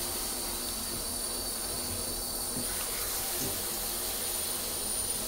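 Water spraying steadily from a handheld shower head into a bathtub.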